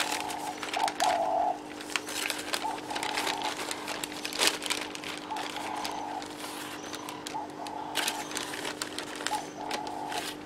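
Clear plastic zip-lock bag crinkling and rustling as it is opened, two small plastic seedling pots are pushed inside, and the bag is squeezed shut; irregular crackles throughout, over a steady low hum.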